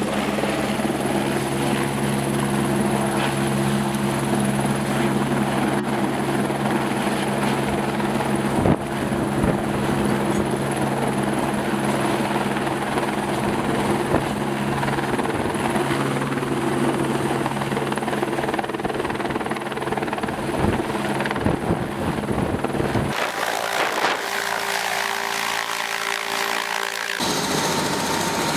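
Helicopter running steadily, a continuous drone of rotor and turbine. About 23 seconds in, it cuts abruptly to a thinner, different steady mechanical hum.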